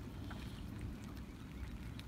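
A small boat moving through floodwater: an uneven low rumble with faint splashes and drips of water around the hull.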